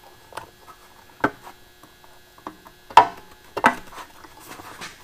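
A handful of sharp metallic clicks and knocks from a hand pop-rivet tool and rivet being fitted into a drilled hole in a sheet-metal tray's edge, the loudest about three seconds in.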